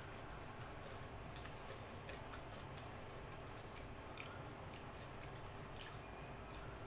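Eating rice and chicken curry by hand: faint, irregular small clicks and soft squishes as fingers mix the rice on the plate, over a steady low background noise.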